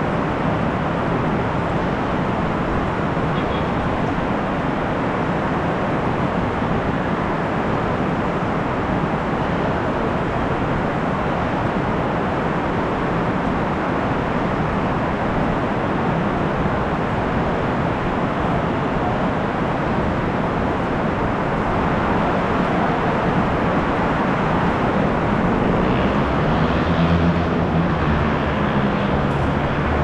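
Heavy rain falling steadily, a dense even hiss. Near the end, a vehicle engine's low hum joins in.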